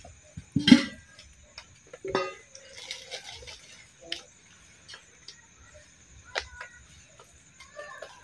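Metal dishes and spoons clinking and knocking while people eat: scattered small clicks, with louder knocks under a second in and about two seconds in.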